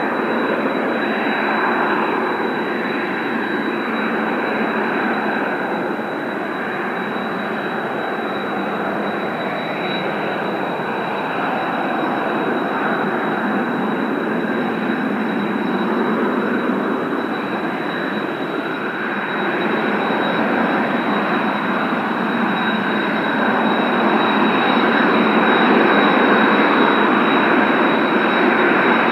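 Kawasaki T-4 jet trainers' turbofan engines running: a steady jet rush with a thin, high, constant whine over it, growing somewhat louder near the end.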